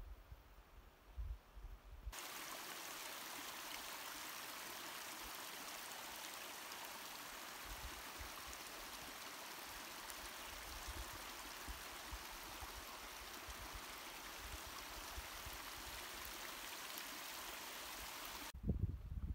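Steady rush of running water from a stream, starting abruptly about two seconds in and cutting off shortly before the end. Before it there is only faint low rumbling.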